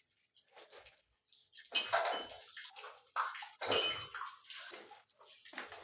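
Hard tools and metal parts being handled: two sharp metallic clanks about two seconds apart, with rustling and small knocks in between.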